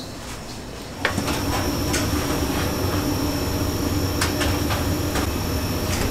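A machine starts running about a second in: a steady hum with a held low tone and scattered clicks and clatter.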